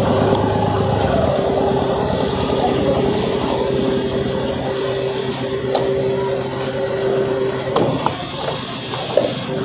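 Petrol pump dispenser running with a steady hum as fuel flows through the nozzle into a motorcycle tank. About eight seconds in, the hum stops with a click as the flow is cut off.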